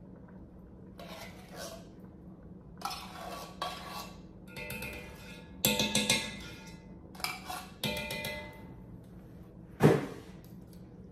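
A utensil scraping and clinking inside a metal can as condensed cream of chicken soup is scooped out into a pot, in several short bouts of ringing clinks. Near the end comes one loud knock, like the can or utensil struck against the pot.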